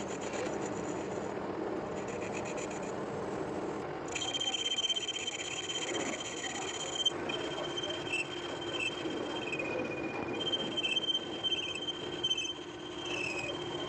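Metal lathe cutting a gear blank with a carbide insert tool: a steady rasping cutting noise with the machine running. About four seconds in, a high-pitched whine from the tool on the work sets in. It breaks off briefly a few times and dips lower once.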